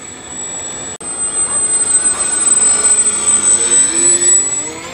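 Twin small brushless electric motors with pusher propellers on a homemade foam RC plane, whining as the plane flies close past. The sound grows louder from about a second in, and the motor pitch slides near the end as the plane passes.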